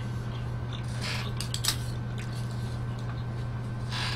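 A mouthful of pizza being chewed close to the microphone, with a few soft wet clicks and crackles about a second in, over a steady low hum.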